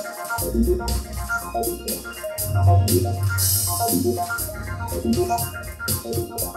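Keyboard music with an organ-like sound over a steady beat and bass notes, with a brief cymbal-like wash about halfway through.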